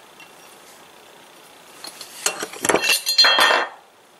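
Small loose steel lathe parts clattering and clinking against each other and against metal, with short ringing tones. A rapid cluster of clinks starts about two seconds in and stops just before the end.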